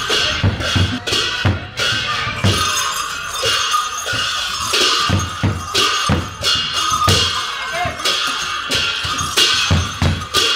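Percussion music: drums beating about twice a second with ringing cymbals over them.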